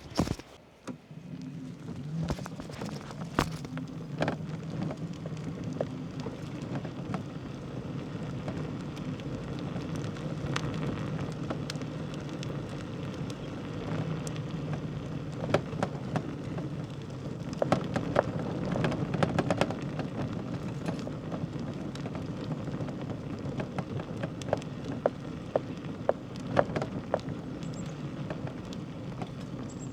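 Bicycle rolling over a rough village road: a steady low rumble of tyre noise, with frequent sharp clicks and rattles scattered through it.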